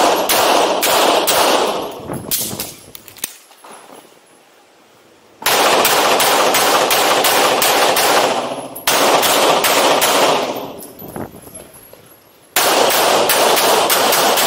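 Handgun fired in rapid strings of shots, several a second, each shot loud with a long reverberant ring. The shooting comes in three strings broken by quieter pauses of about two seconds.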